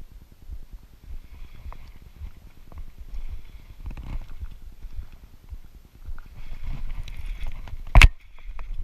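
Choppy low rumble of wind buffeting the microphone, with scattered light clicks and knocks, and one sharp, loud click near the end.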